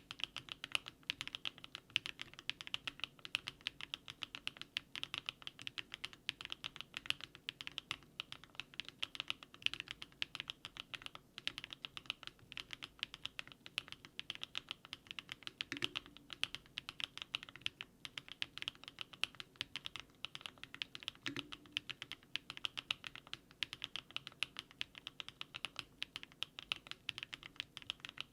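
Fast, continuous typing on a Daring Run DR-70F mechanical keyboard fitted with HMX 80Retros Film Joker switches: a dense stream of key clacks, with a few deeper strokes about 16 and 21 seconds in.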